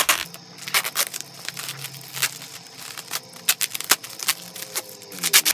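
Plastic bubble wrap and packing tape being handled and pulled open by hand: irregular crackling and crinkling with sharp snaps.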